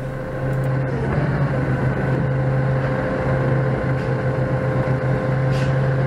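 Doosan 4.5-ton forklift's engine idling steadily, heard from inside the cab, with a low, even hum while a city bus passes close in front.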